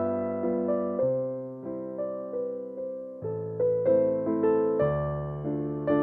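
Background music played on a keyboard: gentle notes and chords, each struck and left to fade.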